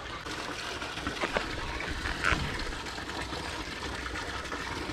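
Creek water running steadily, with a couple of brief knocks.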